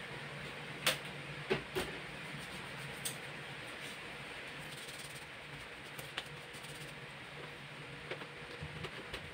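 Faint steady room hiss with a low hum, broken by a few light clicks and handling sounds about one, one and a half and three seconds in, from hands working small items during glove preparation.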